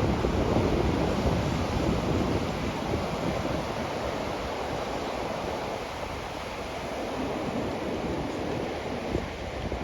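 Sea waves washing onto a sandy beach, with wind buffeting the microphone; a little louder in the first couple of seconds, then easing.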